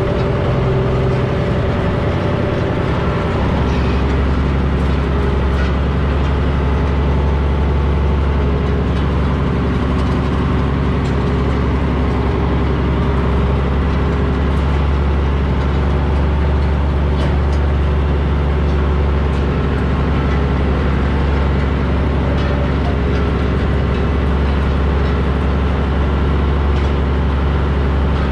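Heavy truck engine running steadily under load while it pulls a disc harrow; its low drone deepens and strengthens about three and a half seconds in, then holds.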